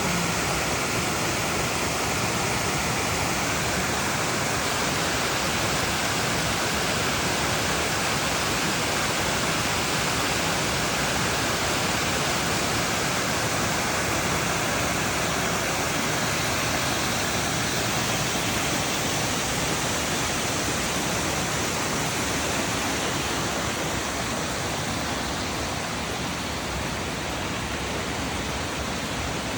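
Wagner Falls, a waterfall, with water pouring and splashing in a steady, even rush that grows a little softer near the end.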